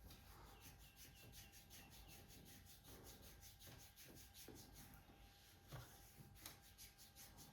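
Faint, quick rhythmic rubbing on skin during a back massage, about five strokes a second, with two short sharper clicks about two-thirds of the way through.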